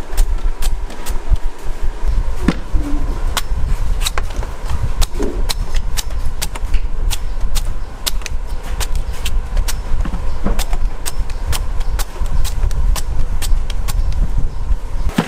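Knife chopping coconuts: rapid, irregular sharp chops, about three or four a second, over a steady low rumble.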